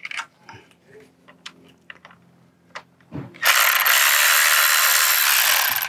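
Milwaukee M12 cordless ratchet running for about two and a half seconds, spinning out a T25 Torx screw. Before it, a few light metal clicks of the socket being fitted.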